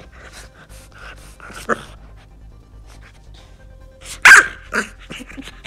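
English bulldog puppy breathing hard in short noisy puffs as she bites and worries at a trouser leg in play. About four seconds in she gives one loud, sharp bark, followed by a shorter, quieter one.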